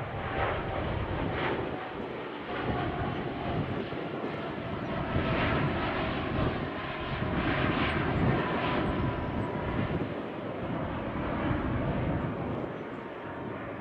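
Boeing 787 Dreamliner's twin turbofan engines at climb power just after takeoff: a broad, steady jet noise with a faint high whine. It is loudest in the middle and fades near the end as the airliner climbs away.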